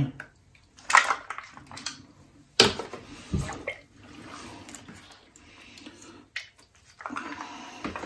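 A metal ladle scraping and clinking against a stainless steel pan, with several sharp clinks, as a runny mixture of melted lard, seeds and nuts is scooped out and dropped wetly into a foil tray.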